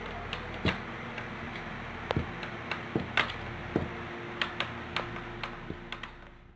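Wooden rolling pin rolling out dough on a plastic-sheet-covered table: irregular light clicks and knocks as the pin and hands move over the sheet, over a faint steady hum.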